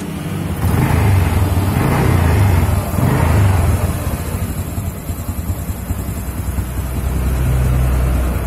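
Honda Revo motorcycle's single-cylinder four-stroke engine running on a test start after its worn cam chain was replaced. It is revved briefly three times in the first few seconds, then settles to a steady idle.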